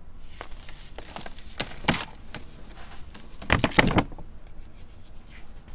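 Molded baking soda shapes crushed and crumbled by hand, giving dry, gritty crunches: a few scattered cracks early, then the loudest run of crunching about three and a half seconds in.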